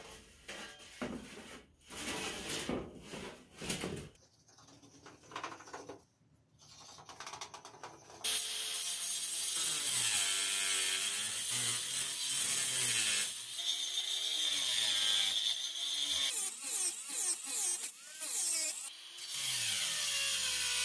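Sheet metal clattering and knocking as it is handled for the first few seconds. About eight seconds in, a handheld power tool starts cutting aluminium diamond-plate sheet: a loud, harsh, high-pitched cutting noise that wavers in pitch and keeps going, with a short break near the end.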